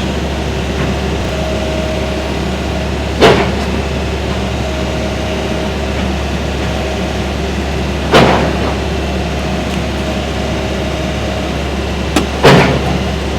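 Demolition work: loud bangs of impacts on the building at about five-second intervals, two close together near the end, over a steady engine hum.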